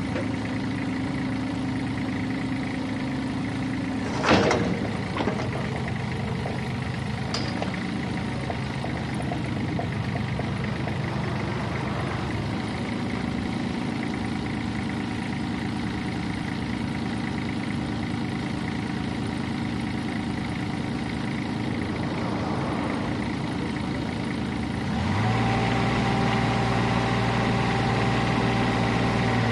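Kubota U-30-5 compact excavator's diesel engine running steadily as the boom and arm are worked, with one sharp clank about four seconds in. Near the end the engine note steps up in pitch and gets louder.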